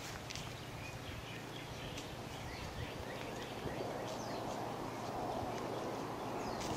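Outdoor ambience with a bird giving a run of short, repeated chirps in the background over a steady hiss; a rustling noise grows louder about halfway through.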